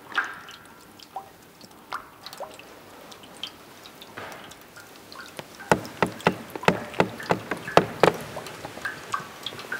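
Sparse drip-like plinks and knocks, each with a short ringing tone, turning into a quicker run of sharp knocks about three a second between about six and eight and a half seconds in.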